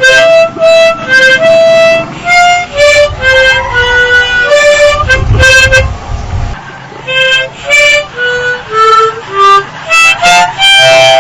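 Film soundtrack music: a melody played as a run of separate held notes on a reedy wind-type instrument, with a low rumble underneath about five seconds in.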